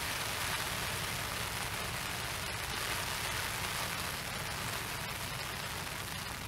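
Steady rain falling and pattering on a fishing umbrella overhead, with a low rumble underneath.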